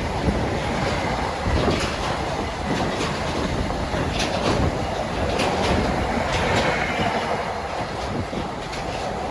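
A train running past on the rails: a steady rolling rush with irregular clacks of wheels over rail joints, and a faint brief wheel squeal about two thirds of the way through.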